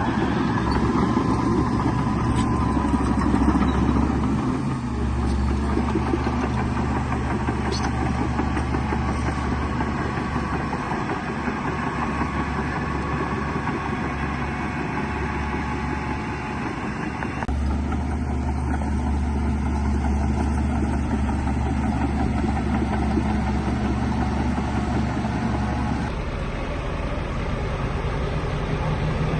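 Heavy diesel earthmoving machinery, a bulldozer working with dump trucks, running steadily with a deep engine hum. The engine note shifts abruptly a few times.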